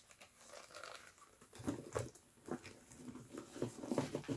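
Faint rustling, crinkling and small clicks and taps of items being handled and lifted out of a tote bag, busier in the second half.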